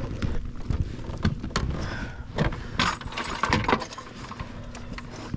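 Irregular clicks and knocks of gear handled aboard a plastic fishing kayak: the landing net and a measuring board being moved while a bass is taken in hand, with a denser clatter in the middle.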